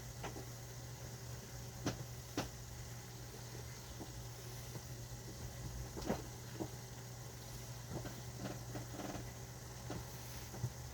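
A few light knocks and clicks of things being handled in a kitchen, over a steady low hum.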